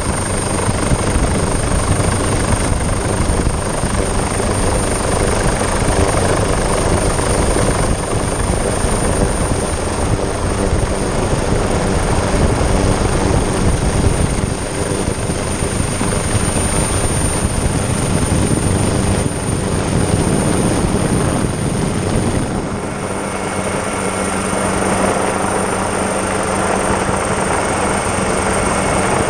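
Helicopter rotor and turbine engine running steadily, heard from on board the aircraft as a loud, even drone with a faint constant hum. About three-quarters of the way through, the deepest rumble eases and a steadier hum comes forward.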